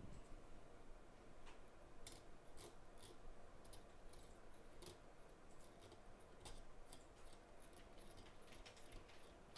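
Faint, irregular scratches and clicks of a knife blade cutting and scraping between an A11 CPU and its stacked RAM chip to free the RAM.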